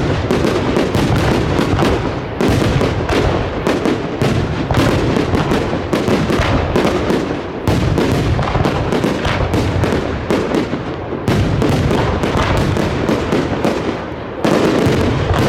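Aerial fireworks display going off in a dense, continuous barrage of bangs and crackling, many explosions a second, with only brief lulls.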